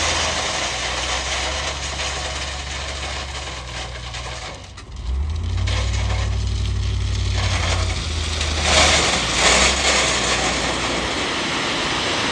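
Old loader's engine running under load, its note picking up about five seconds in, with gravel crunching and scraping as the loader moves and spreads it, loudest a little past halfway.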